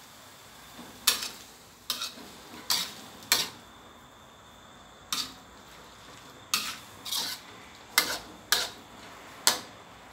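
A spatula scraping and clacking against a metal wok as a stir-fry is stirred and tossed: about ten sharp, irregular strikes, with a pause of nearly two seconds in the middle.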